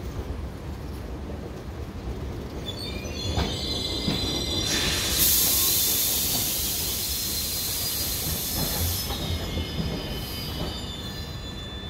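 A passenger train's brakes squeal in several high tones as it comes to a stop. About five seconds in, a loud hiss of air lasts about four seconds, and the squealing fades away near the end.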